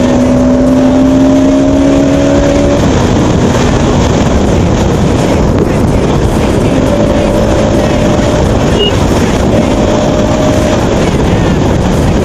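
Bajaj Pulsar NS200's single-cylinder engine running under way, under a heavy rush of wind and road noise. The engine note rises slightly, then drops away about three seconds in, and comes back in a steady tone from about seven seconds to near the end.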